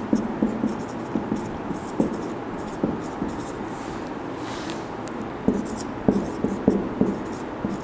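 Marker pen writing on a whiteboard: short, irregular scratching strokes and light taps of the tip as words are written.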